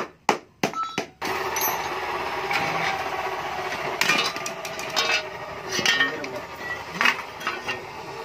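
Hammer blows on the split steel shell of a stock Yamaha F1ZR two-stroke muffler. There are about four quick sharp knocks in the first second; then a steady background noise starts suddenly, with a few more spaced-out blows.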